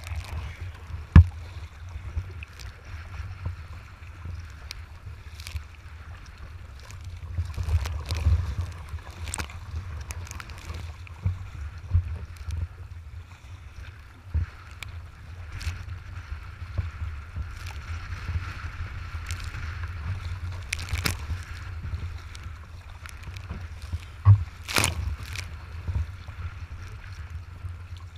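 Wind buffeting the microphone of a camera mounted on a kayak's bow, a steady low rumble, while choppy waves splash and slap against the hull. A sharp splash or knock comes about a second in, and a couple more come near the end.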